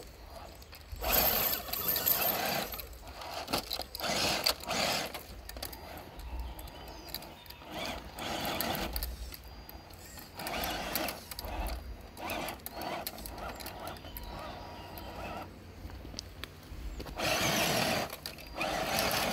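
Electric motors and geared drivetrains of radio-controlled scale crawlers whirring in short bursts of throttle, stopping and starting several times.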